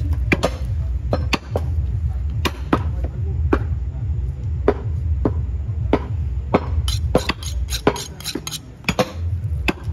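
Heavy butcher's knife chopping through beef on a wooden chopping block. The strikes come at about one a second, then in a quicker run about three-quarters of the way through, over a steady low rumble.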